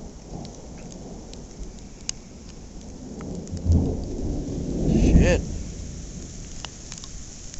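Thunder from a thundersnow storm: a low rumble builds about halfway through, peaks a second or so later and rolls away. Light ticks of falling precipitation run throughout.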